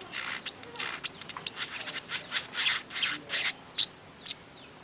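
Sogon songbird singing a busy song: rapid harsh, scratchy chattering notes mixed with quick high falling chirps, then two sharp high chirps near the end.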